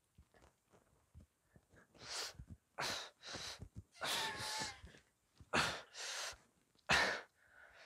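A man breathing hard and forcefully while bench pressing a barbell: a run of about seven loud, noisy puffs and gasps with the strain of each rep, starting about two seconds in.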